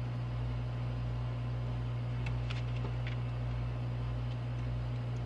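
Steady low mechanical hum, like an appliance motor running, with a few faint light clicks a couple of seconds in.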